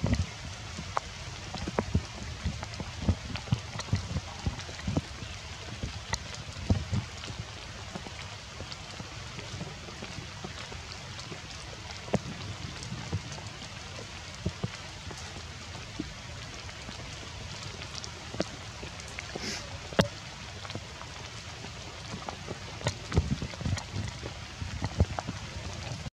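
Steady rain falling on wet foliage, with a continuous hiss and many close drops ticking and tapping, some heavier than others.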